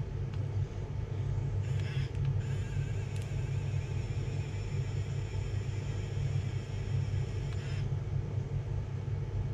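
A 3D pen's small filament-feed motor whirring steadily from just under two seconds in until near the end, extruding plastic. Under it runs a steady low hum.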